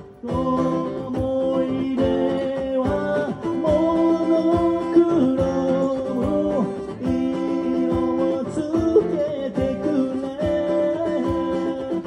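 Live solo music: a man singing to his own acoustic guitar, the guitar strummed steadily under the vocal melody.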